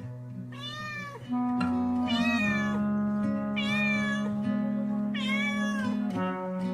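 A kitten meowing four times, each call rising and then falling in pitch, over background music.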